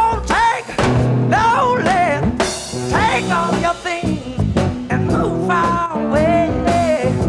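Blues-rock band playing live: a Les Paul electric guitar with bass and drums, and a male voice singing over it in bending, drawn-out lines.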